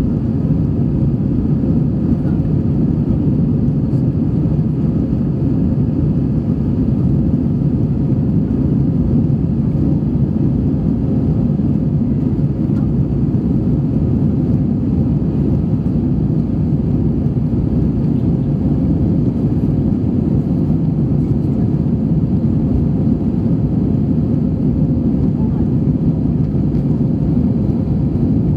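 Steady low roar of jet engines and airflow inside an airliner cabin in flight, heard from a window seat over the wing.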